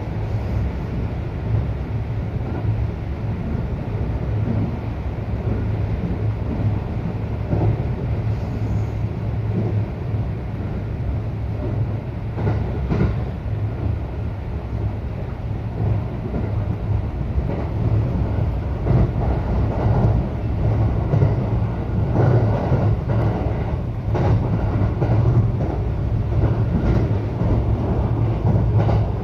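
Local train running, heard from inside the car: a steady low rumble with short clicks and knocks from the wheels on the track, more frequent in the second half.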